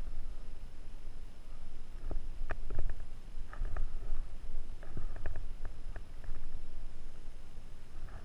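Low rumble of wind and handling on a marker-mounted action camera's microphone, with scattered sharp clicks and taps, most of them between about two and six seconds in.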